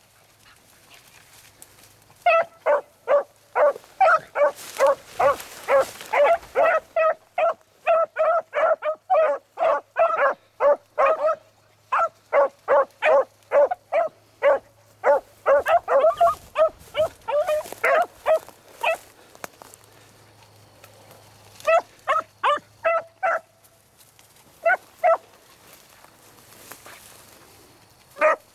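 Hunting beagles baying in quick, repeated barks, about three a second, as they work a scent trail through brush, giving mouth on the track. The barking comes in long runs, stops for a couple of seconds in the second half, returns in a short burst and then a couple of single barks, and goes quiet near the end.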